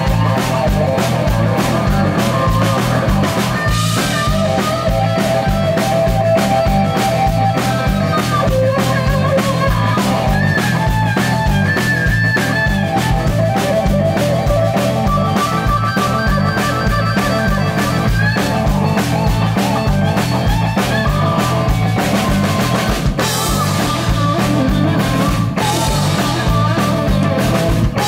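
Rock band playing live: a lead electric guitar plays long held, bending lines over a steady drum kit and bass, with no vocals.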